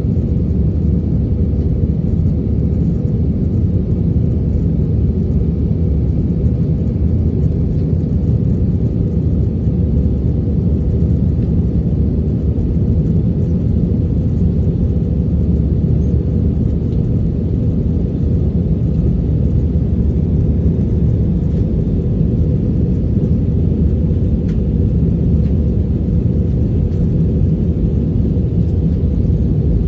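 Steady low rumble of cabin noise inside an Airbus A320-family jet airliner in flight: engine and airflow noise.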